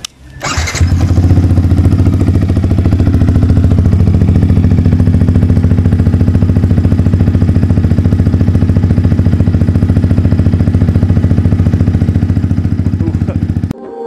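Yamaha MT-15's single-cylinder engine fitted with a replica SC Project full exhaust, started on the electric starter and catching within a second. It then idles steadily with an even pulse, and the sound cuts off suddenly near the end.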